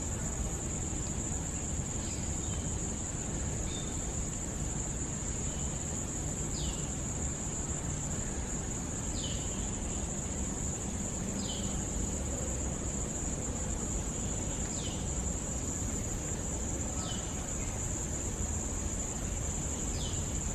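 Steady high-pitched drone of a forest insect chorus, with a short falling chirp about every two to three seconds.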